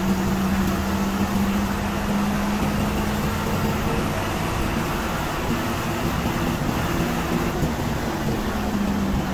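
Coach bus in motion, heard from inside the cabin: steady engine drone with an even hum under road and tyre noise, at a constant cruising speed.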